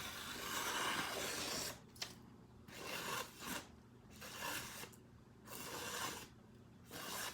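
Freshly stropped knife edge slicing through a sheet of newspaper: a series of about seven soft, papery swishing cuts, the first the longest, the rest shorter.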